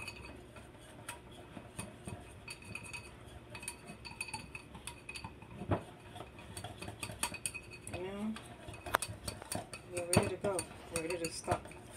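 Wire whisk beating batter in a ceramic bowl: a quick, uneven run of clinks and scrapes as the wires strike the sides of the bowl.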